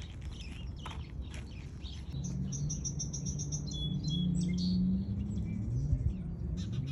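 Small birds chirping and singing, with a quick trill of short, high notes about two seconds in, followed by a few higher calls. A low wavering hum runs underneath from about two seconds in.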